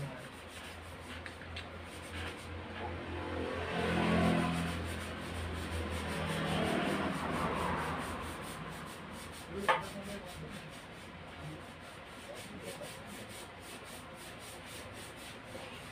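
Rubbing and scraping as a compression tester's hose is handled and its fitting is threaded into the spark plug hole of a motorcycle cylinder head. The rubbing swells twice, and there is a single sharp click about ten seconds in.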